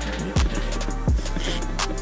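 Background music with a steady beat: deep bass notes and kick-drum hits about twice a second, with crisp high percussion.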